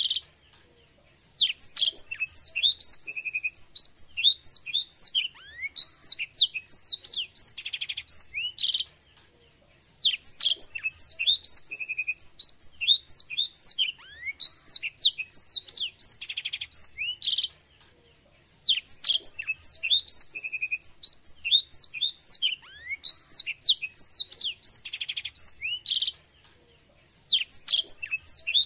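Black-throated canary singing: long, fast phrases of high twittering notes and rattling trills, each about seven to eight seconds long, with short pauses of about a second between them.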